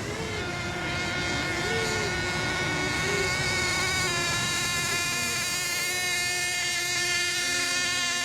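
Engines of several radio-controlled racing boats running steadily, a high whine made of several overlapping pitches, with more joining about four seconds in.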